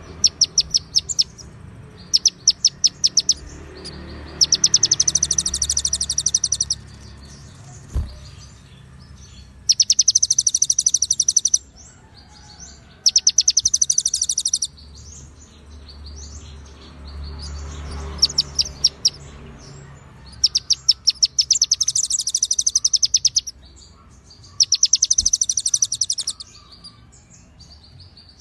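A konin songbird singing rapid, high, rattling trills in bursts of one to two seconds, separated by short pauses. The song carries phrases copied from cililin and ciblek songs.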